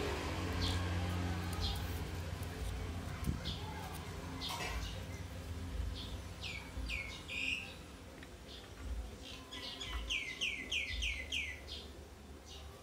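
Small bird chirping: runs of short, quickly falling chirps, one run about the middle and a faster run near the end. A low hum underneath fades over the first few seconds.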